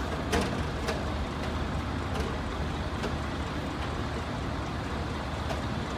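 Steady harbour ambience heard from a ship's deck: an even low rumble and hiss, with a few faint clicks.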